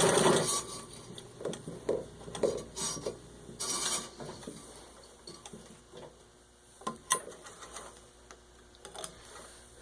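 A 1923 Singer 66-4 treadle sewing machine, stitching at full speed, stops about half a second in. Scattered light clicks and knocks of handling follow, the sharpest a little past halfway.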